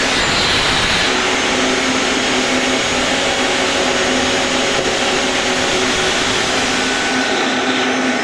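Electric angle grinder running steadily on metal: a constant motor whine under a broad hiss.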